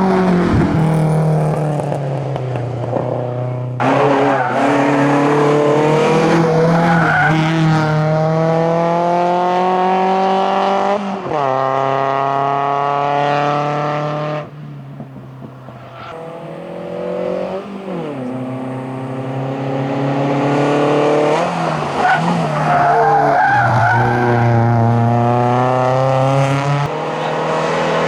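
A Volkswagen Golf GTI 1.8 16V's four-cylinder engine at full throttle, climbing in pitch through each gear and dropping back at every upshift, several times over, with a brief quieter stretch around halfway. The first few seconds hold the end of a different car's run before an abrupt cut.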